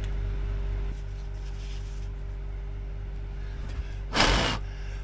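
A steady low machine hum with a faint regular pulsing and a constant mid-pitched tone. About four seconds in comes a loud, half-second burst of rushing noise.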